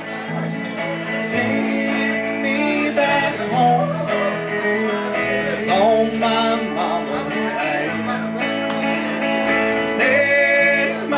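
Country band playing live: electric guitar, acoustic guitar and upright bass, with a melody line bending in pitch over the chords.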